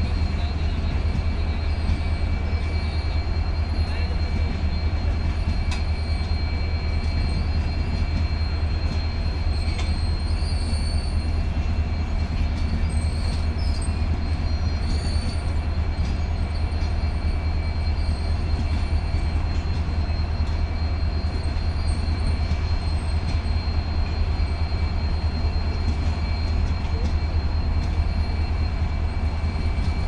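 Indian Railways passenger coaches rolling slowly past, a steady low rumble with thin high squealing tones from the wheels and occasional faint clicks.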